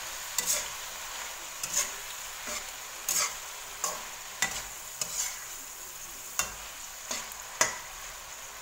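Oyster mushrooms and chicken sizzling steadily in a coated wok while a metal slotted spatula stirs them, scraping and knocking against the pan in irregular strokes about once a second, the loudest near the end.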